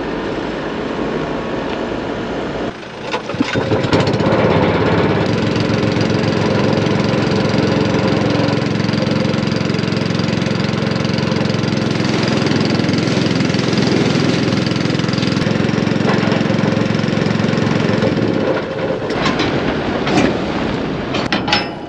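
An engine starts about three seconds in and then runs steadily, easing off near the end.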